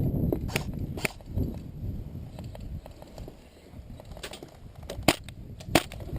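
Airsoft gun shots: about five sharp, snapping cracks at irregular intervals, the last two the loudest, over a steady low rumble.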